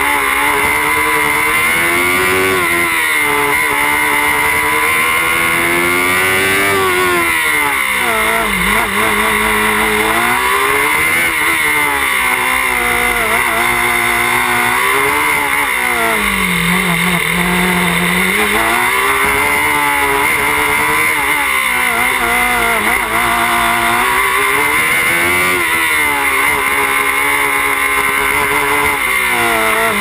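Small open-wheel formula race car's engine, heard close from on board, revving up and down repeatedly as the driver accelerates and lifts off. The pitch dips lowest about eight seconds in and again around the middle.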